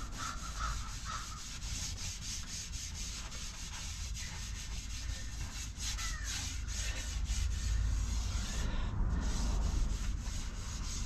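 A cloth rag rubbing oil into the bare solid-cherry blade of a canoe paddle, in repeated back-and-forth strokes that get a little busier and louder in the second half.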